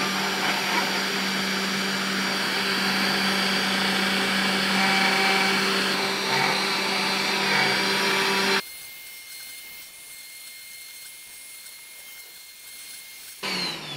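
Small 500-watt spindle of a Lunyee 3018 Pro Ultra desktop CNC router running steadily as its bit engraves lettering into a metal block. About two-thirds through, the sound drops suddenly to a much quieter level, and near the end the pitch falls as the spindle winds down.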